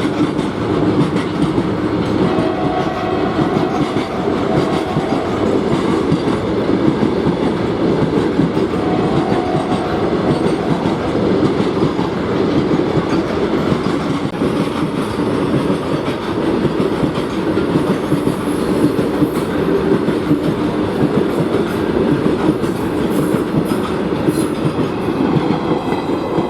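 A train running through, its wagons' wheels clattering steadily over the rail joints.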